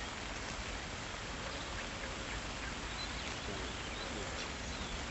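Outdoor ambience: a steady hiss with a few faint, short high chirps scattered through it.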